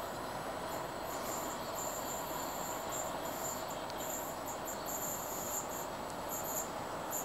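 Insects chirping in short, repeated high-pitched bursts over the steady distant rumble of a train running across the viaduct.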